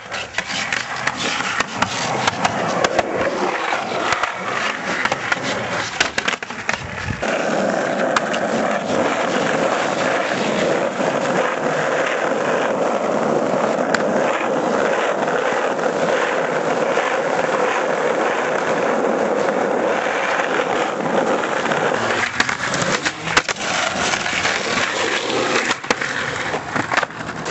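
Skateboard wheels rolling over rough asphalt and concrete, with sharp clacks of the board popping and landing. A long stretch of steady rolling runs through the middle, and clacks and knocks return near the end.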